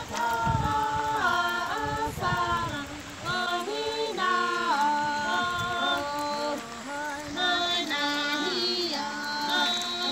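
Women singing unaccompanied, a slow melody of held notes that step up and down.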